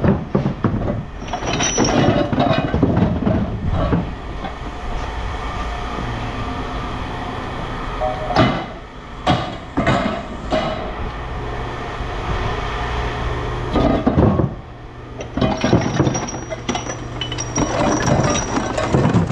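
Scrap metal being handled: pieces clanking, scraping and squealing against metal, with several sharp clangs about halfway through and again near the end. A low steady hum runs underneath from about six seconds in.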